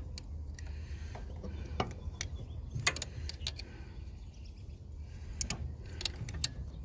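Hand tools working on a small diesel engine: irregular metallic clicks and clinks of a wrench on the fittings, over a steady low rumble.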